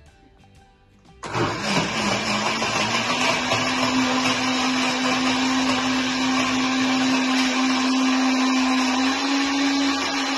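Electric countertop blender starting about a second in and running steadily, blending pomegranate seeds and milk into a shake. Its motor whine dips briefly as it spins up, then holds one pitch.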